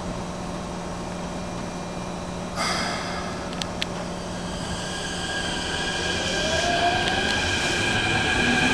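Keikyu 1500-series electric train starting to pull away from the platform over a steady low hum. A short hiss of air comes a few seconds in, then the traction motor whine rises in pitch and grows louder as the train gathers speed.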